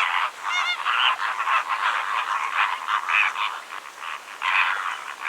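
A flock of waterfowl calling, with many harsh calls overlapping in a rapid, constant chatter and a few short high chirps mixed in.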